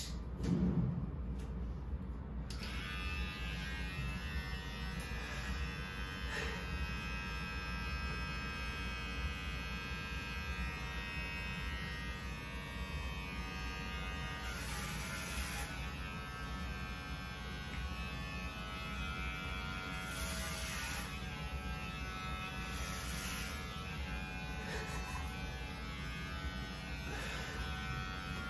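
Cordless electric hair clipper switched on about two and a half seconds in, then running with a steady buzzing drone while shaving a head, with brief harsher bursts now and then. A sharp click at the very start.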